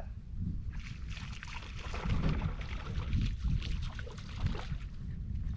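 Water splashing and rushing around a small fishing boat on the move, over a steady low rumble.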